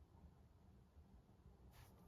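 Near silence: faint low room rumble, with one brief soft scratch near the end.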